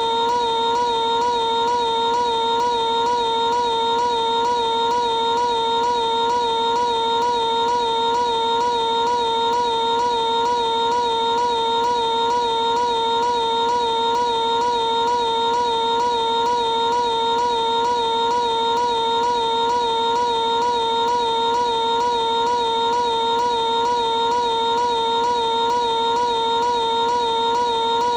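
Piglet's high-pitched cartoon scream, drawn out into one unbroken held tone with a fast, even wobble, a tiny snippet looped seamlessly over and over.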